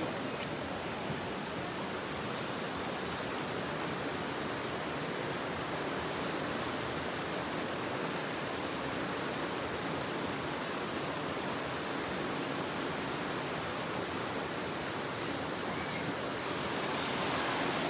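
River water rushing over rocks through small rapids: a steady rush of water.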